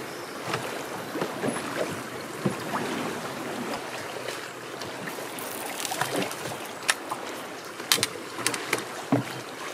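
Swollen river current rushing and lapping around a moored boat, an even hiss of water, with a few sharp clicks or knocks in the second half.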